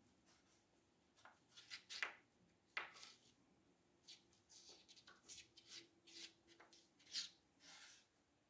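Faint, irregular scratching and scraping of a cat's paws and claws scrabbling at the laminate floor and the rail of a mirrored sliding wardrobe door. It comes in short bursts, with a few sharper scrapes among them.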